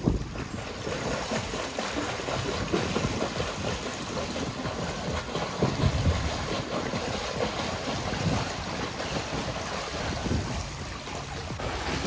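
Water splashing and churning: a steady noisy wash with a few heavier low surges.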